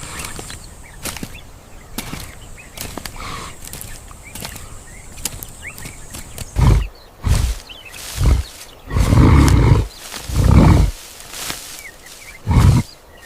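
Faint scattered clicks and ticks, then, from about halfway, a series of deep animal calls: a few short grunts, two longer calls of about a second each, and one more short grunt near the end.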